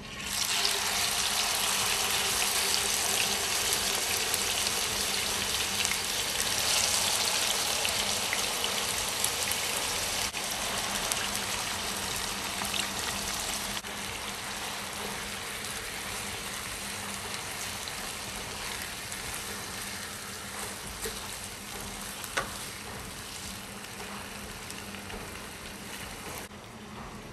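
Marinated squid sizzling in hot oil in a frying pan, starting suddenly as it goes in and loudest at first, then easing slowly as it is stirred with a spatula. A single sharp tap comes near the end.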